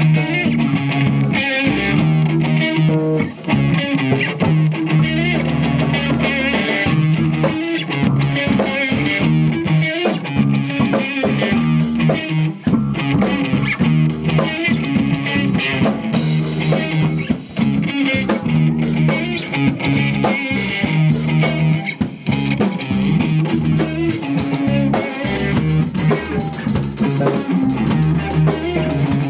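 A live rock band playing, with electric guitar, bass and drum kit. The drums come in with steady cymbal and snare hits about seven seconds in.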